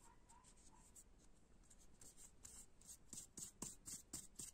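Faint rasping of a nail file against the grip tape edge of a fingerboard deck as the excess tape is filed off. Quick strokes, about four a second, start about two seconds in.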